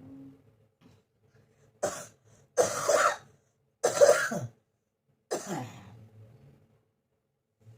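A person with a cold coughing four times, about a second apart, the last cough trailing off in a falling tone.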